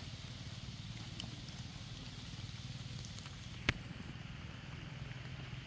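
Steady low rumble of outdoor background noise with scattered faint ticks, and one sharp click about two-thirds of the way through.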